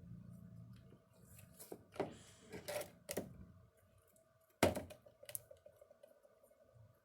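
A few sharp clicks and knocks of small objects being handled, the loudest a little past halfway, over a faint low hum at the start.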